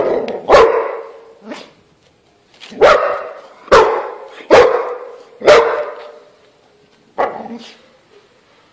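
A dog barking loudly: two quick barks at the start, four more about a second apart from around three seconds in, and a last one about seven seconds in.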